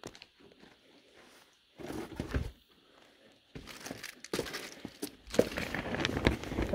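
Footsteps over littered floor, with plastic sheeting and debris crinkling and crunching underfoot: a short burst about two seconds in, then near-continuous crackling with sharp clicks through the second half.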